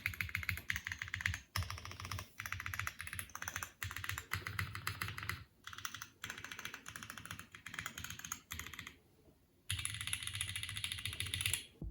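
Typing on a mechanical keyboard fitted with Outemu Maple Leaf tactile switches, factory-lubed with nylon housings: fast runs of fairly loud, clacky keystrokes in bursts, with a brief pause about nine seconds in.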